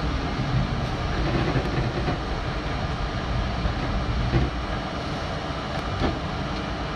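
R32 subway train running through a tunnel, heard from the front car: a steady rumble of wheels on rails with a few sharp clacks over rail joints.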